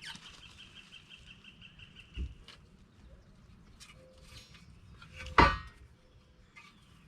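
A bird chirping in a quick, even series that stops about two and a half seconds in, where there is a dull thump, then one loud metallic clank about five seconds in as the new coil spring and suspension parts are handled.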